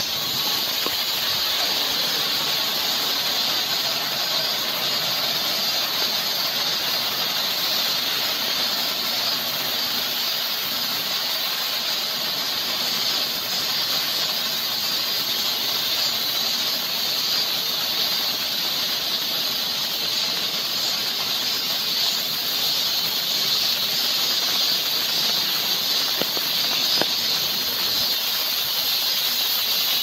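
Steady summer rain falling on forest leaves and a wooden boardwalk: a continuous even hiss with a strong high-pitched band, unchanging throughout.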